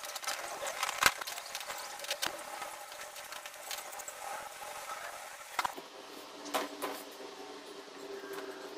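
Irregular taps, knocks and scrapes of paint being daubed onto a canvas on a wooden easel, with one loud knock about a second in and a few more knocks near the end as the canvas is handled.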